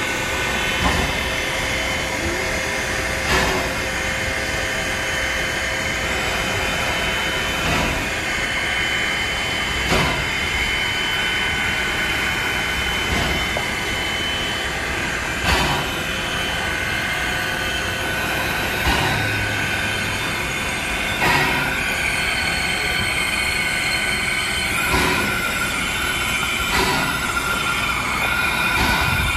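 Baldwin 2-8-0 steam locomotive Sierra Railway No. 28 standing still under steam, with a steady hiss of steam and a faint high whine. A short sharp puff or knock comes every few seconds at uneven intervals.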